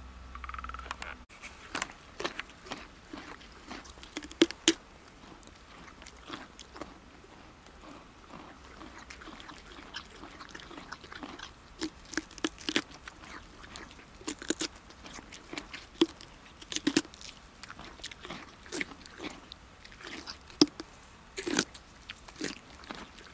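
A horse biting off and chewing a carrot: irregular, crisp crunches, some of them loud, begin about a second in and continue.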